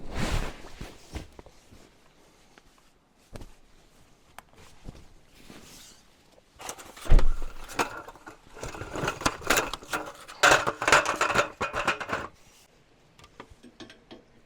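Gear being handled on a vehicle: a thud at the start and another about seven seconds in, with scattered knocks and clicks, then about four seconds of dense rustling and rattling.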